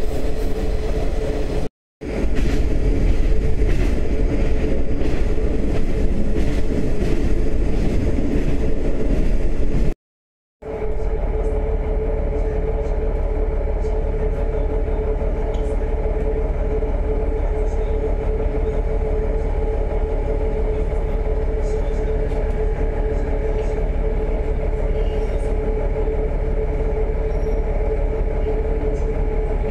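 Diesel railcar heard from inside the cabin: first a low running rumble as it travels, then, after two short silent cuts, a steady engine hum as it stands idling at a station.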